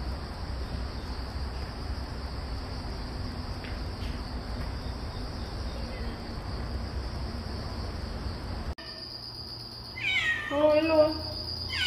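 Domestic cat meowing near the end: a couple of drawn-out meows that fall in pitch. Before them there is only steady background noise with a faint high whine.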